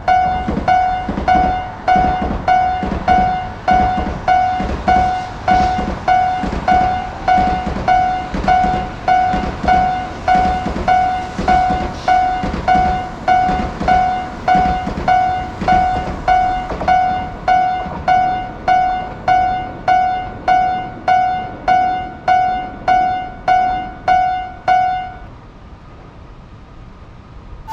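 Japanese level crossing alarm ringing its repeated electronic 'kan-kan' bell tone, about four strikes every three seconds, over the low sound of a train running past. The bell stops a few seconds before the end.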